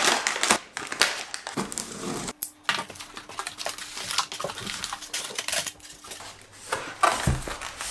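Cardboard boxes and packaging being handled and opened: flaps scraping and rustling, with irregular small knocks and a heavier thump near the end.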